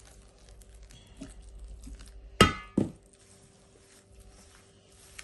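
Two clangs about half a second apart from a stainless steel mixing bowl being knocked, each ringing briefly, over the faint rustle of hands rubbing oil into flour.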